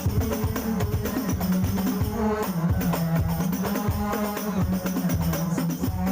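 Hadroh ensemble of frame drums and hand drums playing a dense, driving rhythm, with a sustained melodic line held over the beat.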